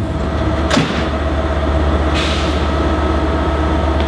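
Diesel train standing at a station platform with its engine idling: a steady low hum with a few held tones above it. A sharp click comes about a second in, and a brief hiss about two seconds in.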